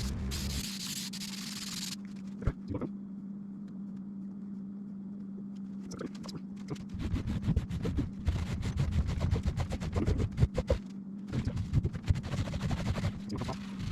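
Aerosol contact adhesive hissing from the can for about two seconds and then stopping, over a steady low hum. From about six seconds in, carpet is handled and pressed down onto the glued surface, making irregular taps, rubs and rustles.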